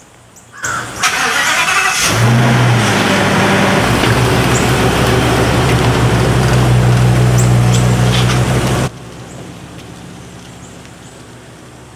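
Coachmen Leprechaun Class C motorhome's engine starting up and running with a steady low drone as the motorhome drives off. About nine seconds in it drops suddenly to a fainter drone.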